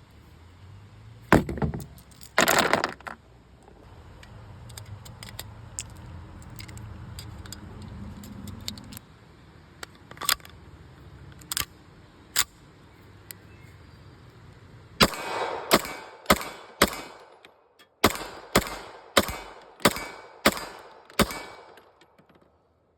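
SAR K2P 9mm semi-automatic pistol: two loud sharp reports early on, a few light clicks, then a quick string of about ten shots, roughly two a second, with a brief pause partway through.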